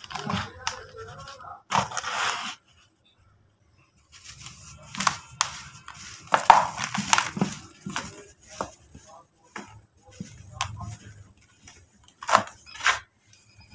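Dry red dirt being crumbled and squeezed by hand in a plastic tub, the grains falling back in irregular bursts. There is a short break of silence about three seconds in.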